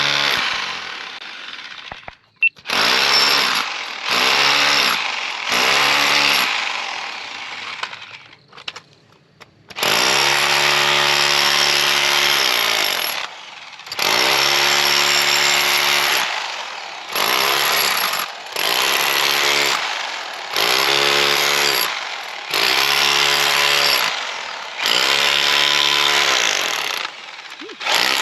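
Bauer 4-in-1 hammer drill hammering concrete, run in repeated bursts of one to three seconds with short pauses between them. There is a pause of a few seconds early on. The motor's pitch sags at the start of each burst.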